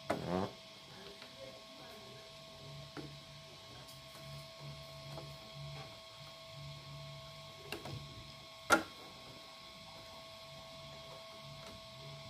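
Plastic RC truck body shell being handled and pressed down onto its chassis: a few light plastic clicks and knocks, the loudest a single sharp snap about nine seconds in, over a steady faint hum.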